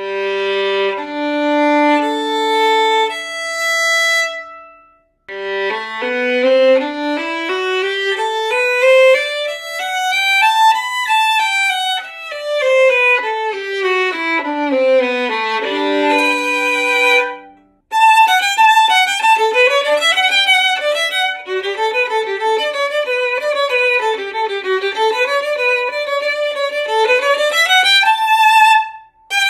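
Unaccompanied violin strung with Thomastik-Infeld Dynamo Solo strings, bowed. It opens with a few long held notes, then after a short pause plays a scale from the low G string up about three octaves and back down. After another brief break it plays a fast run of quick notes, ending on a held high note.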